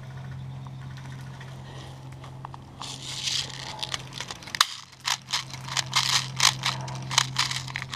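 Footsteps crunching and rustling through dry brush and leaves. From about halfway through there is a quick irregular series of crunches, roughly three a second, over a steady low hum.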